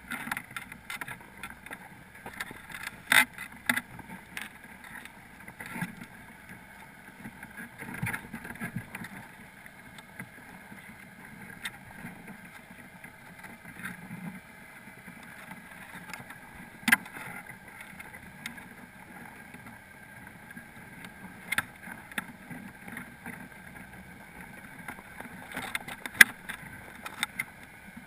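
Underwater sound through a GoPro's waterproof housing inside a crab pot: a steady muffled hiss with a handful of sharp clicks and knocks as the crab clinging to the camera shifts its legs against the housing and pot.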